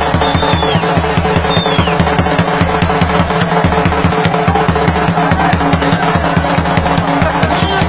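Music with a fast, steady drum beat.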